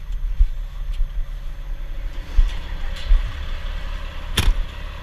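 Heavy truck engine idling with a low, uneven rumble. A sharp knock comes about four and a half seconds in.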